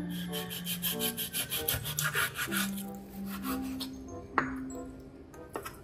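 Kitchen knife slicing raw pork on a wooden chopping board: quick back-and-forth sawing strokes that scrape the blade along the meat and board, with one sharp knock about four and a half seconds in.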